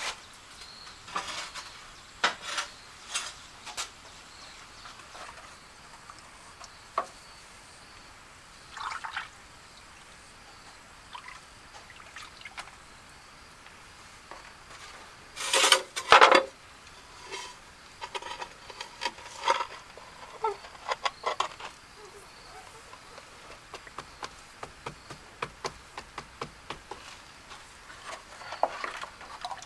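Scattered clinks, scrapes and knocks of hand masonry work, with water being poured. A louder, splashier burst comes about halfway through.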